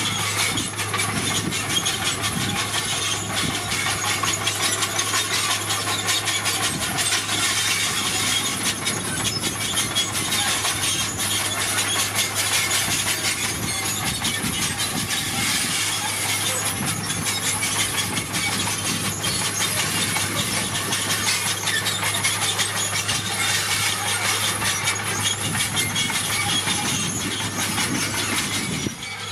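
Heavy diesel earthmoving machinery at work: an engine running steadily with a low hum under dense, continuous clattering and rattling, typical of steel crawler tracks and gravel.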